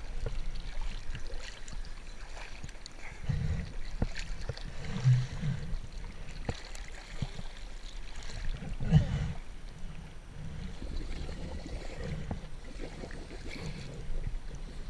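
Sea water sloshing and lapping around a camera at the surface, with a few dull low surges, the strongest near the end of the middle.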